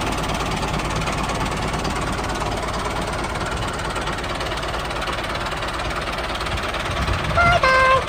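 Small engine of a homemade mini tractor running steadily. Near the end a short two-note tone sounds, higher then lower, louder than the engine.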